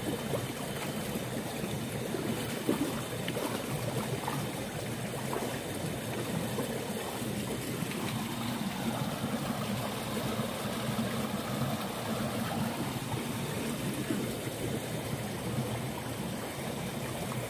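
Shallow stream water running and trickling steadily through a narrow muddy channel, with a few faint knocks.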